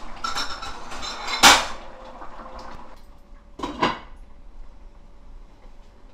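Tableware knocking during a meal: a sharp clatter about a second and a half in, then a shorter knock near four seconds, with low room noise between.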